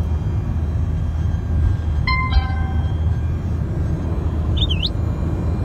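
Steady road and engine rumble inside a Suzuki Cultus car's cabin at highway speed. A brief tone comes about two seconds in, and a short warbling chirp near the end.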